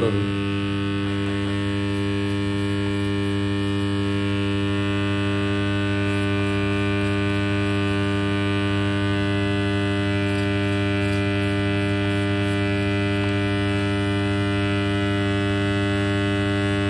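Dental laboratory vibrator buzzing steadily with a mains-frequency hum, shaking air bubbles out of freshly poured soft dental plaster in a rubber mould on its platform.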